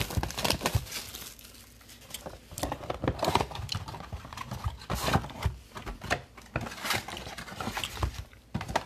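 Trading-card packaging being handled and opened by hand: irregular small clicks, crinkling and tearing of wrapper and box.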